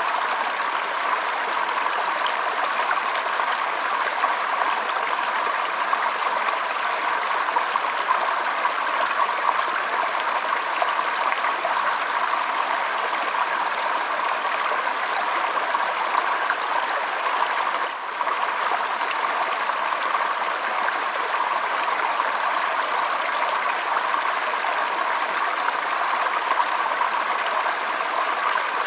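Flowing water running steadily, an even rushing sound with one brief dip in level about eighteen seconds in.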